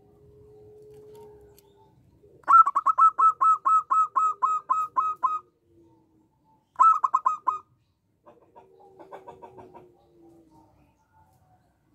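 Zebra doves calling. A soft low coo at the start is followed, about two and a half seconds in, by a loud run of about a dozen quick staccato notes. A shorter run comes a little later, then a fainter patter of notes near the end.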